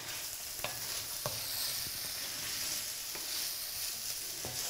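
Mushrooms, eggplant and onion frying in a cast-iron skillet with a steady sizzle, stirred with a wooden spatula that scrapes the pan and knocks against it a few times.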